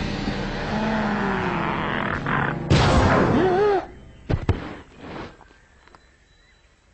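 Slowed-down cartoon soundtrack: low drawn-out tones, then a sudden loud bang a little under three seconds in with wavering sliding tones over it, followed by a couple of sharp knocks, then it dies away to near quiet.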